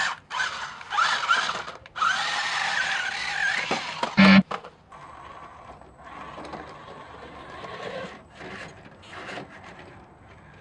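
Electric motors of toy RC cars whining and revving under load on a climb, their pitch rising and falling. A sharp knock about four seconds in, then a fainter whine.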